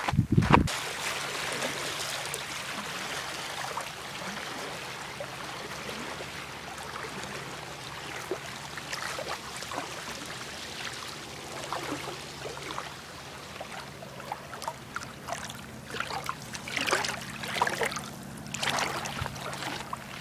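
Water trickling and splashing over a faint steady low hum, with a cluster of sharper splashes or knocks in the last few seconds.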